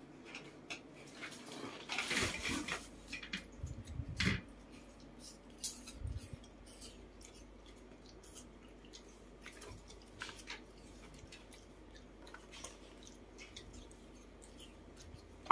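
A pet monkey moving about and handling plastic toys, making scattered light taps, clicks and rustles. There is a denser run of louder knocks and rustling between about two and four and a half seconds in, and a dull thump about six seconds in.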